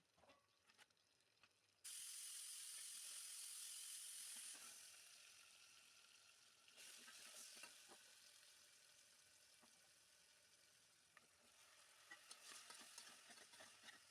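Faint sizzling of food frying in hot oil, starting suddenly about two seconds in, dying down, then rising again, with light clicks and crackles near the end.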